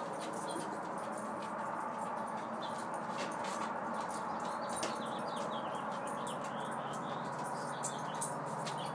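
Faint high bird chirps now and then over a steady background hiss, with scattered light clicks and taps.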